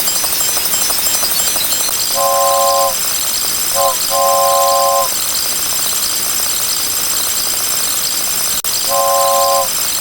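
Toy train horn sounding a chord of several tones in toots: long, short, long, then another long toot near the end, over a steady hiss. It is a looped sound effect.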